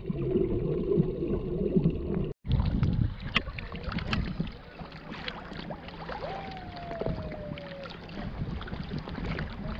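Muffled underwater water noise from a camera held below the surface while snorkeling, cut off suddenly about two and a half seconds in. After that comes water splashing and lapping against the camera at the surface, with scattered small clicks and drips and a faint tone sliding down near the middle.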